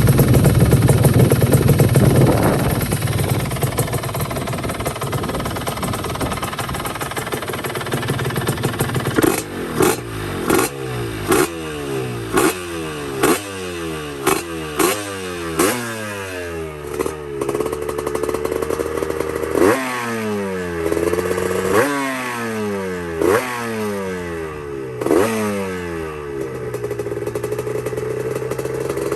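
Yamaha RX-Z 135 two-stroke single breathing through a stainless-steel expansion-chamber exhaust. It runs loud and steady for the first few seconds, then the throttle is blipped about fifteen times in quick succession, the revs falling back after each. It settles to a steady idle near the end.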